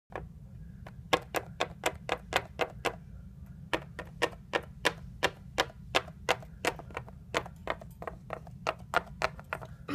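A quick, uneven run of sharp clicks or taps, roughly three a second, over a steady low hum.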